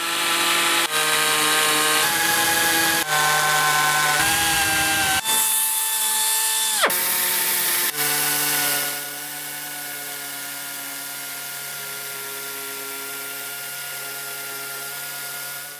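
Nitto Kohki AMB-0307 pneumatic mini beveler's air motor running with a steady whine and air hiss, in short clips joined by abrupt cuts. Near 7 s the pitch falls away as it spins down, and from about 9 s it runs more quietly.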